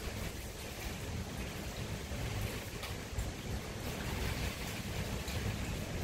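Wood fire burning in a shichirin (Japanese brazier): a steady rushing hiss over a low rumble, with a few faint crackles about halfway through.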